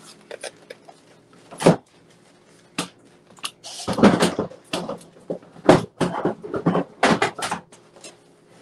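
Kitchen cupboard doors and handled items knocking and clattering as things are put away. It is an uneven string of sharp knocks and bumps, busiest in the second half, with a brief rustle about three and a half seconds in.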